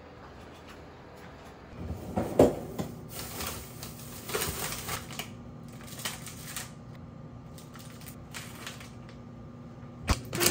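Bottom freezer drawer of a stainless-steel fridge pulled open with a knock, then a spell of crinkling plastic and clattering as frozen food bags are rummaged through. Another sharp knock near the end as the drawer is shut, with a low steady hum underneath.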